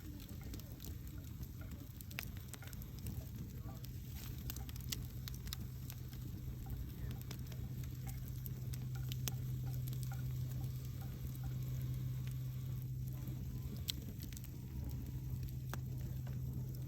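Wood campfire crackling, with frequent sharp irregular pops and snaps over a steady low hum.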